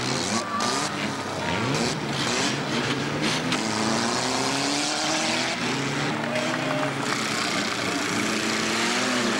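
Engines of several old wrecked autocross cars revving at once, their overlapping notes rising and falling as they drive and ram each other on a dirt track.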